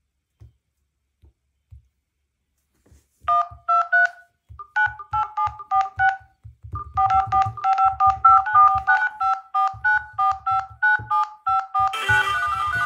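Smartphone in-call keypad DTMF tones: a quick run of short two-note beeps, one for each digit tapped, over soft finger taps on the screens. About a second before the end, a fuller electronic sound comes in.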